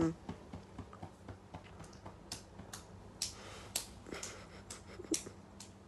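Irregular light clicks and taps, about a dozen, sharper and louder through the middle, over a faint steady hum.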